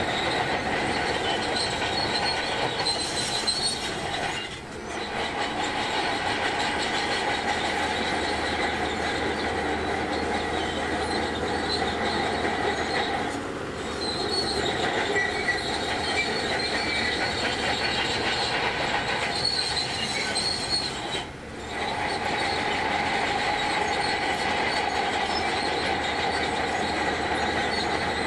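Shantui DH17C2 crawler bulldozer working, its steel tracks squealing steadily over the machine's running noise, with three brief dips about 4, 13 and 21 seconds in.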